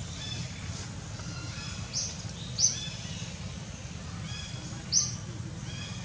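Forest birds calling: three short, sharp high chirps about 2, 2.6 and 5 seconds in, with fainter repeated bird notes between them, over a steady low hum.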